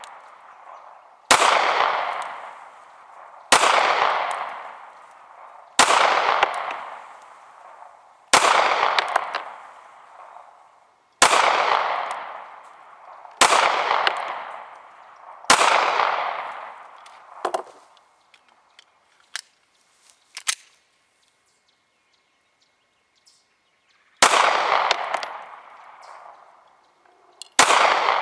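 Beretta Nano subcompact 9mm pistol fired in slow, deliberate single shots, about one every two seconds, each shot followed by a ringing echo that dies away. Seven shots, then a pause of several seconds with a few light clicks, then two more shots near the end.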